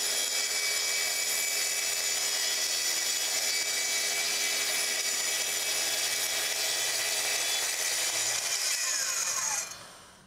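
Plunge track saw running on its guide rail, ripping a long cut through 3/4-inch red oak veneer plywood with a steady whine and hiss. Near the end the saw's motor is switched off and winds down, its pitch falling as the sound fades away.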